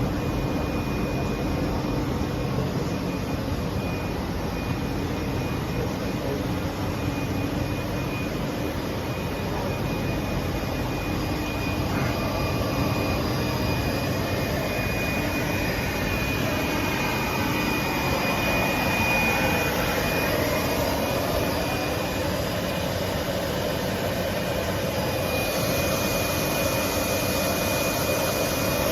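Rubber extrusion and microwave curing production line running under test: a steady mechanical drone of motors and blowers with a thin, steady high whine over it.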